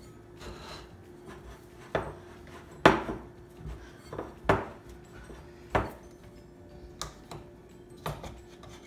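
Festival dough being mixed by hand in a bowl: about six irregular knocks and thuds of the bowl, the loudest about three seconds in, over a faint steady hum.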